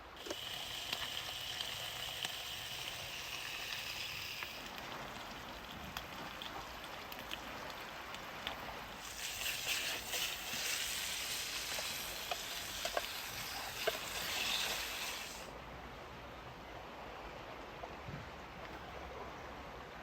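Bacon frying in a Trangia pan with no oil: a steady sizzle with fine crackles. It gets louder for several seconds in the middle, then drops suddenly.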